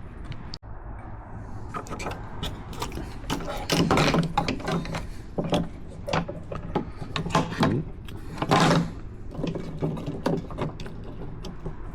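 Clicks, knocks and rattles of metal mounting hardware being handled, with two louder scraping stretches about four and eight and a half seconds in.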